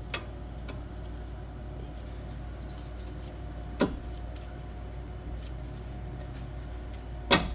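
Steady hum of shop fans, broken by three sharp metallic knocks from tools and parts being worked as a lower control arm bolt is fitted. The loudest knock comes near the end.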